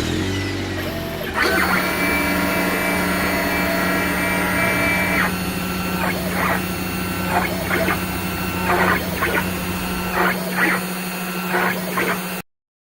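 CNC router engraving: a steady spindle motor hum under the whine of the stepper motors, whose tones hold for a few seconds and then come and go in short spells as the axes move the bit. It cuts off suddenly near the end.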